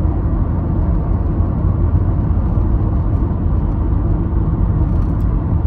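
Steady low rumble, strongest in the bass, with no breaks or changes.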